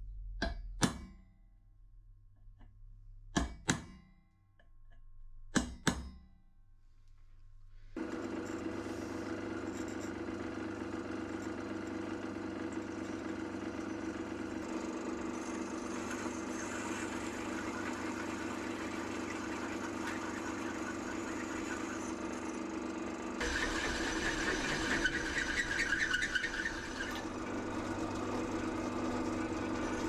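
A hammer strikes a centre punch on steel box section, three pairs of sharp metallic taps. About eight seconds in a pillar drill starts and runs steadily, cutting into the steel. It turns harsher and louder for a few seconds past the middle.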